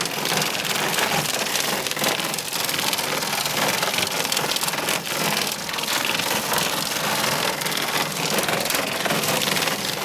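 Hail and heavy rain pelting hard surfaces: a dense, steady clatter of many small impacts over the hiss of rain.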